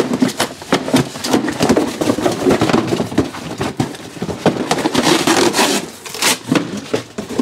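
A delivered package being opened by hand: steady rustling, scraping and tearing of cardboard and packaging, with many sharp crackles.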